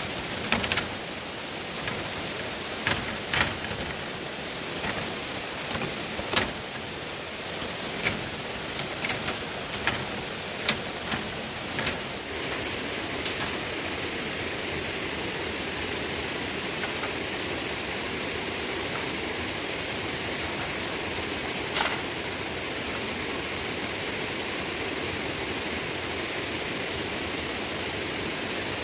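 Steady hiss with a thin, steady high tone. Sharp irregular knocks come about a dozen times in the first twelve seconds, and once more about twenty-two seconds in.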